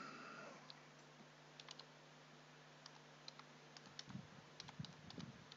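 Faint, scattered computer keyboard keystrokes and clicks as a command is typed in, over a steady low hum.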